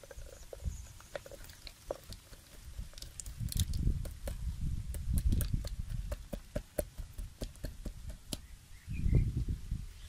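Woven bamboo fish trap being handled over a plastic jug: scattered sharp clicks and rattles, with low rumbling knocks about four to six seconds in and again, loudest, near nine seconds.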